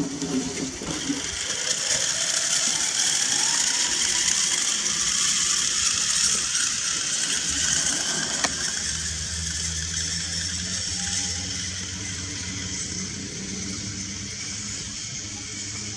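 Steady metallic whirring hiss of a log-carrying cable line in use, swelling over the first few seconds and strongest in the middle. About eight seconds in comes a single sharp click, after which a steady low hum carries on under a softer hiss.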